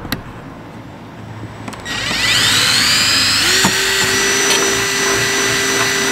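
Cordless drill starting about two seconds in, its whine rising in pitch as it spins up and then running steadily as the bit bores a bolt hole up through a car's rear diffuser.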